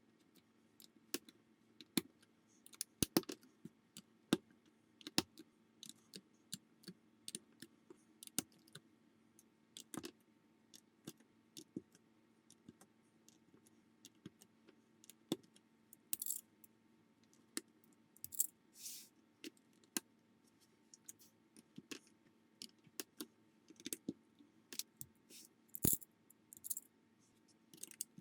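Small plastic building bricks clicking and clattering at an uneven pace as pieces are picked up and pressed together, with a few brief rustles in the middle and near the end.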